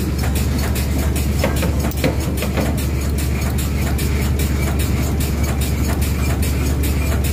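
Lube truck's engine and oil pump running steadily with a low hum and a fast, even ticking while oil is dispensed through the hose into a steel drum.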